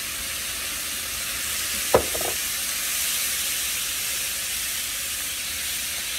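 Ground beef frying with onions and peppers in a skillet, a steady sizzling hiss, with one sharp knock about two seconds in.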